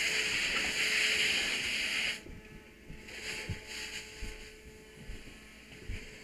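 A loud, steady hiss that cuts off suddenly about two seconds in, followed by quieter scattered bumps and knocks.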